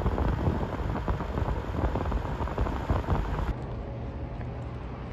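Wind rushing and buffeting the microphone alongside a moving car. About three and a half seconds in it cuts off suddenly to a quieter background with a low steady hum.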